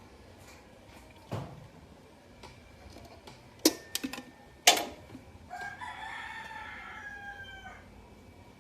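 A rooster crows once, a single drawn-out call of about two seconds that falls slightly in pitch, heard in the last third. Before it come a dull knock and a few sharp clicks.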